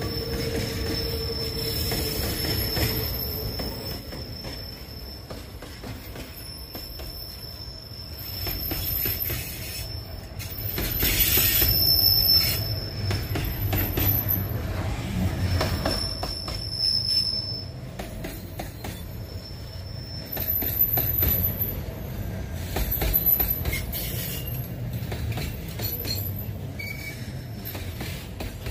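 Hopper wagons of a limestone freight train rolling past. The steel wheels squeal in high, steady tones over a low rumble of wheels on rail, loudest about a third of the way in.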